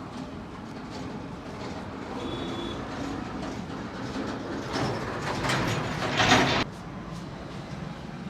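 Roadside traffic noise: a vehicle passes close, growing louder, then stops suddenly about two-thirds of the way through.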